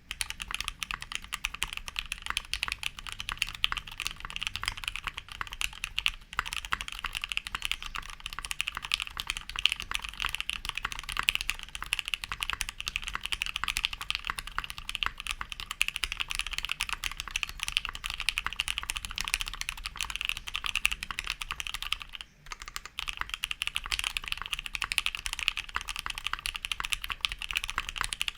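Fast, continuous typing on a custom mechanical keyboard: Gateron Black Ink v1 linear switches in an aluminium half plate, gummy-worm mounted, with GMK doubleshot ABS keycaps. The keystrokes make a clicky, bright clack with no pause, except for one brief break about three quarters of the way through.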